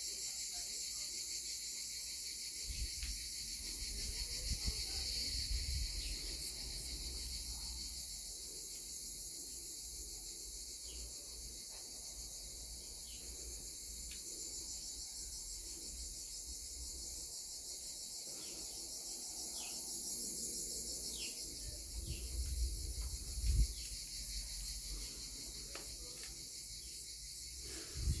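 A steady, high-pitched chorus of insects chirring throughout, with a few low thumps and rumbles now and then, the sharpest near the end.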